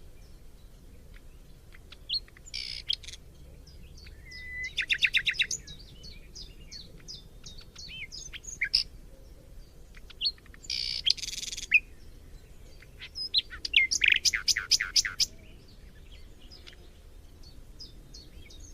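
Several forest songbirds chirping and singing: separate bursts of quick trills, sharp chirps and buzzy calls a couple of seconds apart, the loudest a fast trill near the end.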